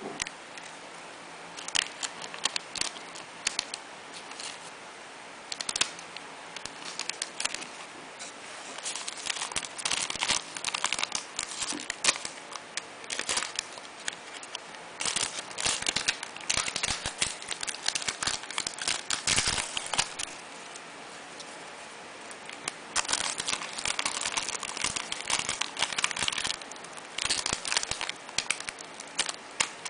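Thin clear plastic bag crinkling and crackling in bursts as a bar of handmade soap is slid into it and the bag is handled around the bar, with short pauses between.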